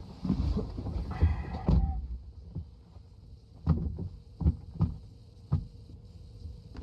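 A series of dull, low thumps or knocks: a cluster in the first two seconds with a brief pitched squeak-like tone among them, then about five separate thumps spaced roughly half a second apart.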